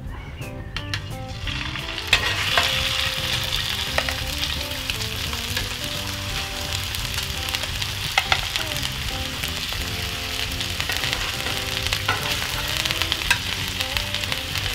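Wild boar burger patties sizzling in a hot pan as they are laid in one after another. The sizzle comes in suddenly about two seconds in and then runs steadily, with a few sharp clicks of the spatula.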